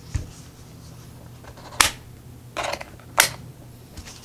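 Two sharp clicks and a short scrape, about a second and a half apart, with a soft thump at the start: a mechanical keyboard being handled and set up on a desk.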